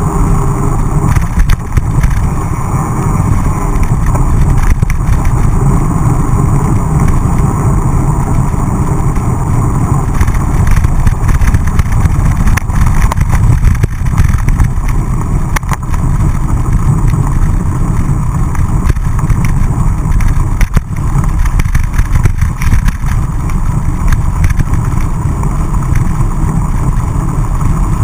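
Wind buffeting the microphone of a camera on a mountain bike riding fast on a dirt and gravel track, a loud steady rumble, with tyre noise and scattered clicks and rattles from the bike jolting over bumps.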